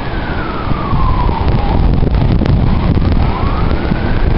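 A siren wailing, its pitch falling slowly over the first two seconds and rising again near the end, under heavy wind rumbling on the microphone.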